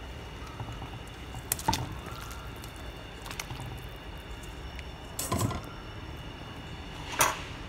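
A pot of simmering herbal chicken soup as chicken pieces are put in: four brief clinks and splashes, about two seconds apart, over a steady low background.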